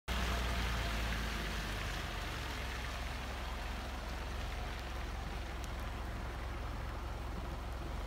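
Steady rain on a wet road with the low, even hum of an idling car engine underneath.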